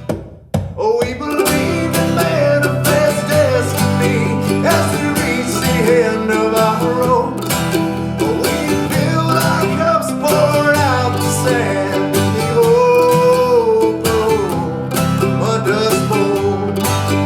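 Guitar music in a folk-country style: strummed chords with a wavering melody line above them, after a brief drop-out about half a second in.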